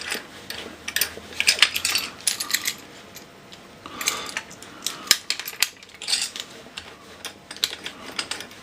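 Small clamp-on bench vise being wound open and clamped up by hand: irregular metallic clicks and rattles as its screw and handle are turned.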